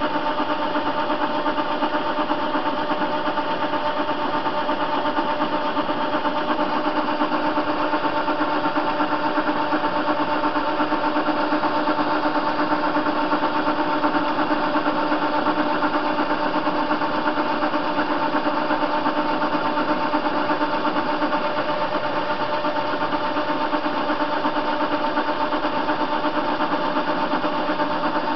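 Soviet-era TV-16 lathe running steadily while turning a steel bar, its motor and gearing giving an even hum with several held tones.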